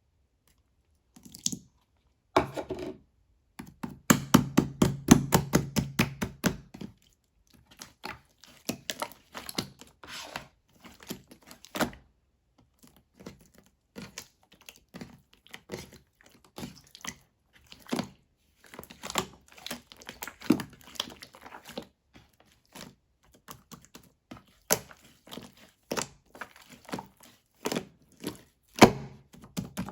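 Slime and clay slime being kneaded and pressed together by hand, giving irregular sticky clicks and pops. A dense, rapid run of clicks comes about four to seven seconds in.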